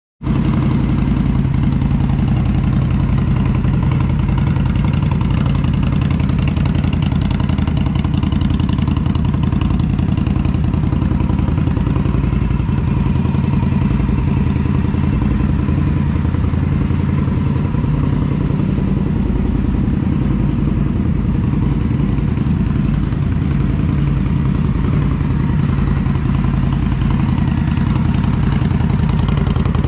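2020 Indian Scout's liquid-cooled V-twin idling steadily through a Vance & Hines aftermarket exhaust.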